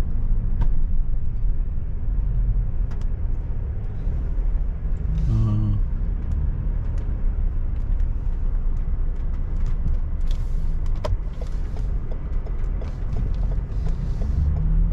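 A car driving at low speed, heard from inside the cabin: a steady low rumble of engine and tyre noise, with a few faint clicks and rattles.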